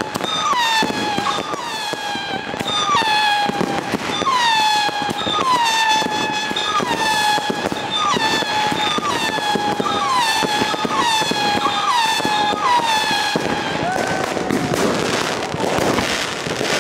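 Fireworks going off in a street: a steady high whistle that swoops down and levels out again about every two-thirds of a second, over continuous crackling. The whistle stops about 13 seconds in, leaving a rougher crackle and hiss.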